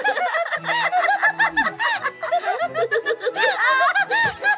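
Cartoon characters laughing hard: continuous high-pitched giggling and snickering in quick rising-and-falling bursts.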